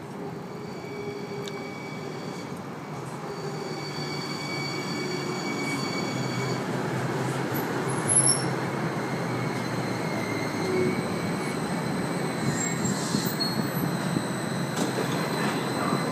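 New Jersey Transit light rail train pulling in along the platform and slowing to a stop. A rolling rumble grows louder over the first several seconds, with a high steady whine of several tones that fades out after about six seconds.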